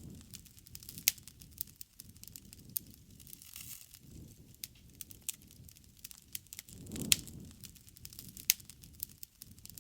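Wood campfire crackling, with irregular sharp pops and snaps. A low rush swells up about seven seconds in.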